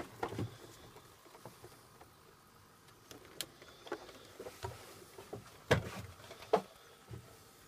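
Light handling knocks and clicks, scattered and irregular, with two sharper knocks close together about two thirds of the way in.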